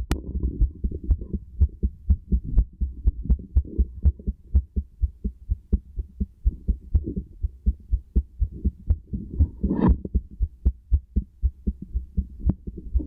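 A human heartbeat heard through a stethoscope: a quick, regular run of low lub-dub thumps. A short rustle cuts across it about ten seconds in.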